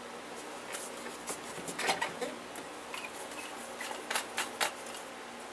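Handling sounds of a gravity-feed paint spray gun being filled and closed up: scattered light clicks and small knocks of plastic and metal, a cluster about two seconds in and several more near the end.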